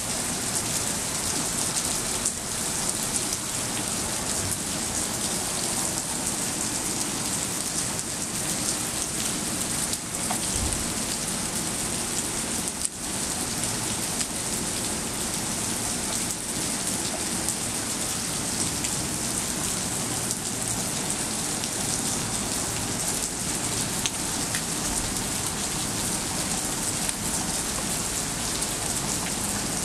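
Rain falling steadily on wet pavement, an even, constant hiss.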